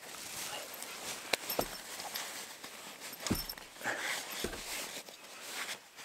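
Nylon hammock and bug-net fabric rustling, with scattered light clicks and knocks, as a person shifts about and climbs out of a camping hammock.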